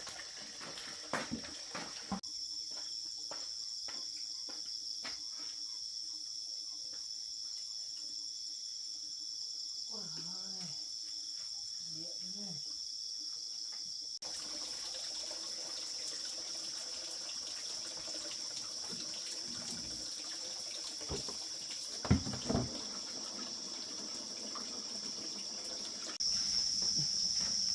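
Crickets and other night insects chirring steadily in a high-pitched chorus, with a couple of faint knocks near the end.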